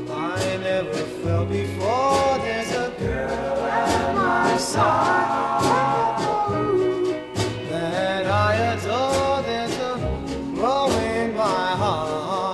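Doo-wop vocal group singing with a steady drum beat behind.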